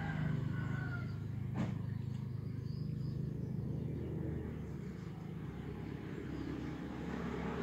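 A motor running steadily with a low hum, with one sharp click about one and a half seconds in.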